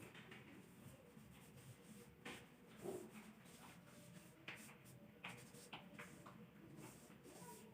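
Printer working through its ink process, very faint: scattered light clicks and brief squeaky, wheezing strokes over a low steady hum.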